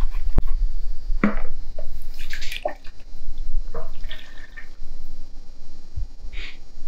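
Liquid ceramic glaze glugging and splashing as it is poured from a plastic bottle into a plastic cup in short, uneven gulps. A few bumps and a click from handling the bottle come in the first second.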